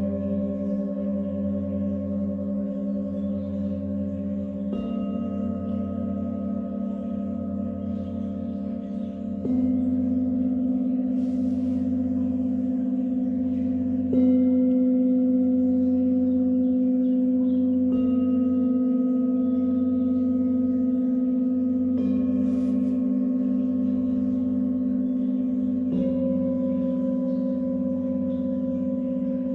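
Tibetan singing bowls struck one after another with a felt-tipped mallet, a new stroke about every four seconds. Each stroke rings on in long, wavering tones that overlap the ones before.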